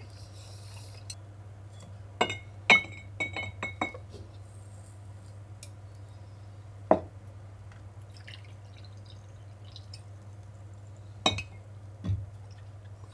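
Ceramic sake ware clinking and being set down: a quick run of ringing clinks about two seconds in, then a single knock in the middle and two more near the end, over a steady low hum.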